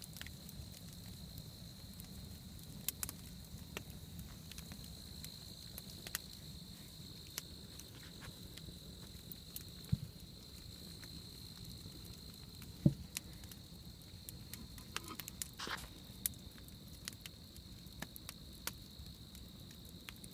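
Campfire burning with scattered crackles and snaps, two sharper pops about halfway through, over a steady high trill of night insects.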